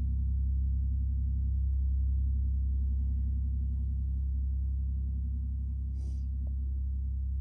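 A steady low rumbling drone, with a short hiss about six seconds in.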